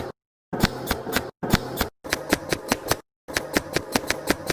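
Welding work making sharp, evenly spaced clicks, about four a second, over a faint steady hum. The clicks are broken twice by brief total silences.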